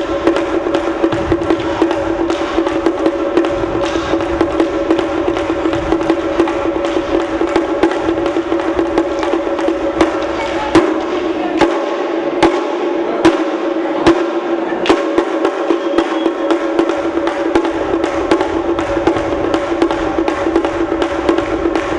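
Wooden sticks clacking together in a folk stick-fighting dance, over a hand-held frame drum and a steady droning tone. About halfway through, the low drumming drops out and a run of louder single stick strikes comes about once a second before the full rhythm returns.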